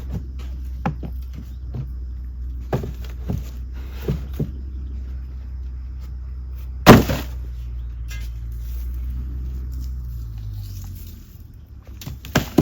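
A steady low engine-like drone with scattered knocks and thuds over it and one loud heavy impact about seven seconds in; the drone dies away near the end.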